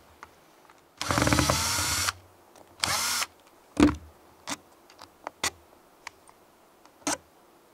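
Cordless drill-driver run in two short bursts, about a second and then half a second, its motor pitch rising as it spins up, backing screws out of the pressure switch housing of a Shurflo 4008 water pump. These are followed by a few sharp clicks and knocks of the tool being set down and the plastic parts handled.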